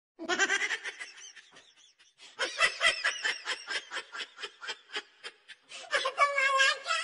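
A person laughing hard in quick high-pitched bursts, with a longer, higher laugh near the end.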